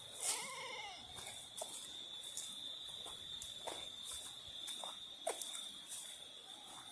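A goat bleats once, briefly, shortly after the start, over a steady high-pitched whine and scattered faint clicks.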